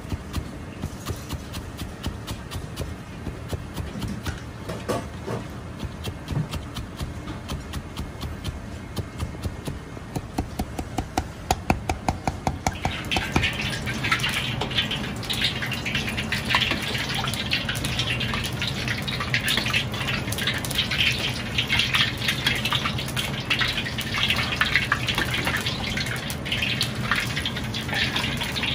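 Cleaver chopping rapidly on a cutting board as shiso leaves are finely shredded, a quick run of sharp knocks. About halfway through this gives way to a steady splashing, crackling hiss as liquid is ladled over a block of braised pork belly held on a spider strainer above a wok.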